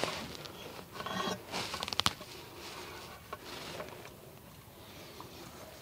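Light handling noises of parts and tools: scrapes, taps and a sharp click about two seconds in, then quieter.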